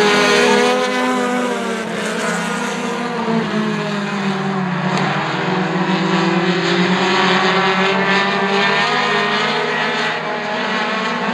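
Several Lightning 4-class four-cylinder stock cars racing around a short oval, their engines droning together and rising and falling in pitch as they work through the laps.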